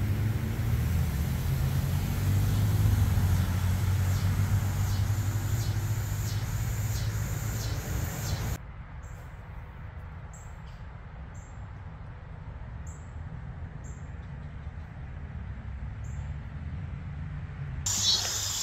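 Road traffic: a vehicle engine hum, loudest about three seconds in, that cuts off abruptly. After it comes a quieter outdoor background with a small bird giving short high chirps every second or so.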